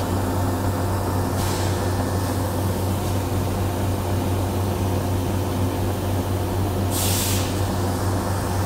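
Steady low hum of factory machinery, with two short hisses, one about a second and a half in and one near the end.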